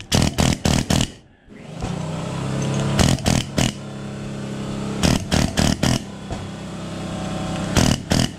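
Pneumatic air hammer with a chisel bit rattling in short bursts as it cuts the copper windings off the end of an electric motor's steel stator. A steady motor drone comes in about two seconds in and runs underneath.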